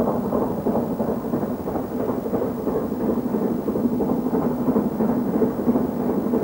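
Steam locomotive (the Great Western Castle-class 4-6-0 Clun Castle, with double chimney) running, a dense, continuous rumble of exhaust and running gear at a steady level.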